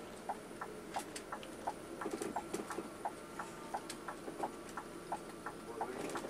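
Bus turn-signal flasher ticking steadily, about three ticks a second, as the bus turns, over a low hum of engine and road noise in the cab.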